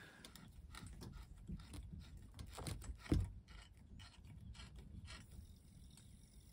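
Faint scraping and small clicks of a hand tool worked against a pipe fitting, with one louder knock about three seconds in.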